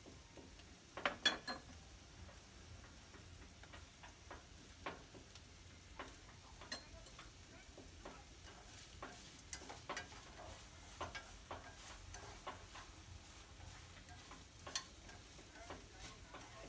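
Wooden chopsticks stirring shrimp in a wok: scattered light clicks and taps against the pan, with the loudest cluster about a second in, over a quiet sizzle of frying.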